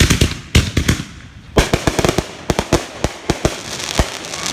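Fireworks going off: a rapid string of loud bangs and crackling pops, with a dense burst of reports starting about a second and a half in.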